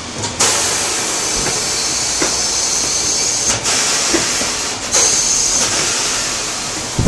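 Compressed air hissing steadily from an air line, briefly interrupted twice, about three and a half and five seconds in.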